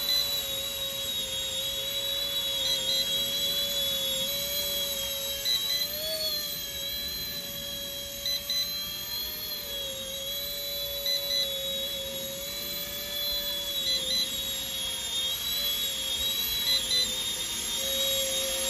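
RC ERA C190 (Airbus H145 scale) electric RC helicopter in flight: a steady, turbine-like whine from its motors and spinning rotors, its pitch rising and dipping slightly now and then.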